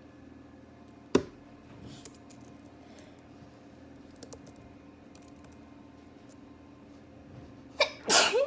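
A person sneezes once near the end: a sharp catch, then a loud noisy burst with a short voiced tail falling in pitch. About a second in there is a single sharp click, over a faint steady hum.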